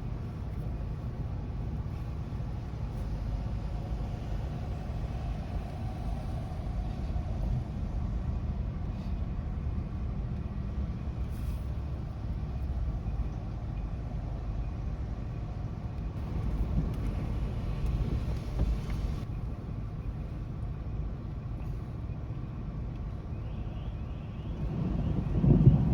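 Steady low outdoor rumble with a faint hiss over it, swelling into a louder low rumble near the end.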